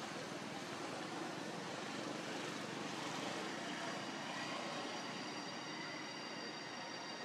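Steady rushing hum of a distant engine. Faint thin high tones join it about halfway through.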